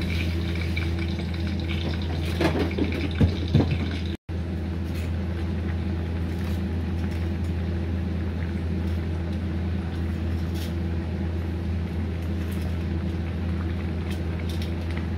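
Tomato-and-egg sauce simmering in a metal pan, over a steady low hum. A few knocks sound about two and a half to three and a half seconds in, and the sound drops out for a moment just after four seconds.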